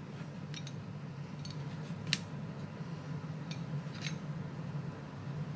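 Light clicks and taps from the steel jaws and head of a BlackMax gear puller being handled and fitted. There are about five short clicks, the sharpest about two seconds in, over a steady low hum.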